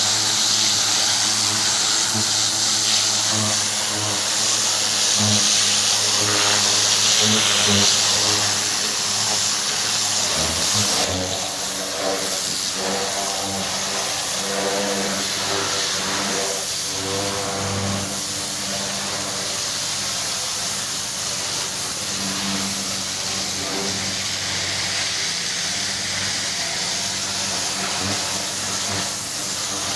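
Pressure washer at work: the machine's engine runs steadily under a loud hiss of high-pressure water spray. About eleven seconds in, the spray's hiss drops and stays quieter.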